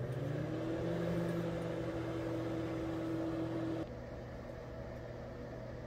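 Microwave oven running: a steady hum with a higher whine over it that stops about two-thirds of the way through, leaving the hum running more quietly.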